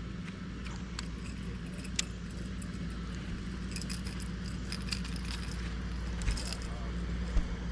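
A motor running steadily with a low hum, with scattered light clicks and jingling rattles over it.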